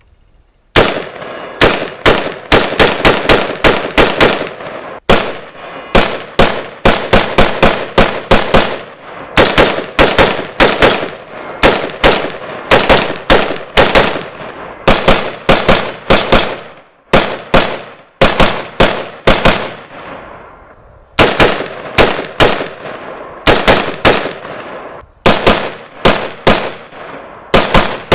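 Rapid semi-automatic fire from a 10.5-inch-barrel AR-15 pistol in 5.56x45, sharp shots at about four a second in long strings broken by brief pauses.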